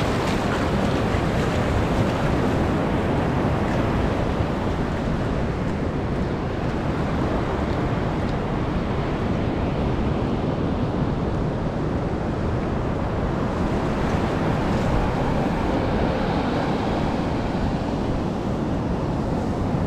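Rough sea surf washing steadily onto the shore, with wind noise on the microphone.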